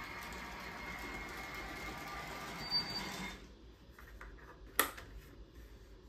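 N scale model train running out of sight: a steady motor whine and hum with a few held tones, which cuts out about three and a half seconds in, followed by a single sharp click.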